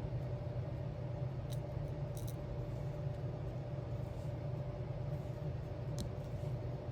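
A steady low hum of room background, with a few faint light clicks, about a second and a half in, twice near two seconds, and again near six seconds, from the small resin gems being tapped into place with a diamond painting pen.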